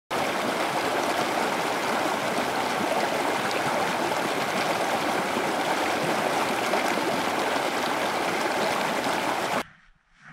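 Rushing stream water: a steady, loud rush that cuts off suddenly near the end.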